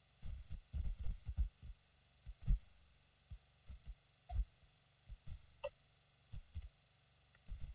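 Wind buffeting an outdoor nest-camera microphone: irregular low thumps and rumbles that come and go in gusts. A couple of faint short chirps are heard about four and five and a half seconds in.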